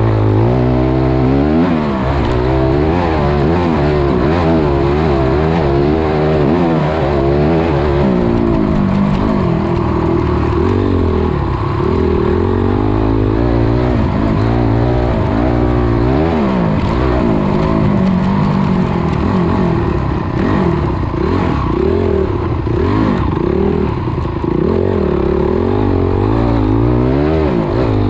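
Dirt bike engine revving hard, its pitch climbing and dropping back again and again as the rider opens and shuts the throttle and shifts gears.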